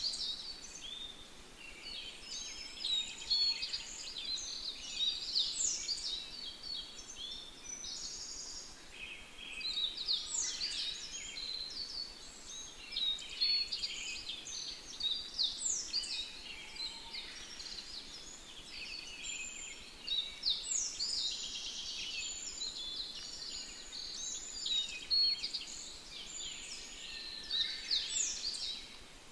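Birds chirping and calling continually, with many short high chirps and quick falling whistles overlapping one another.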